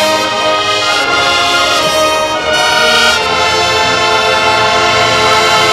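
High school marching band playing loudly, its brass section holding full sustained chords that change a few times.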